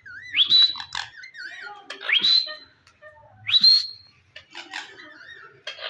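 Pet parakeet whistling: three loud rising whistles, each sweeping up to a held high note, about a second and a half apart, with a wavering warbled whistle near the start and short calls in between.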